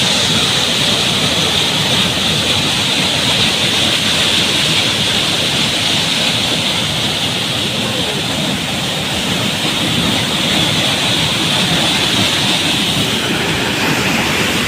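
Loud, steady rushing of a waterfall running full.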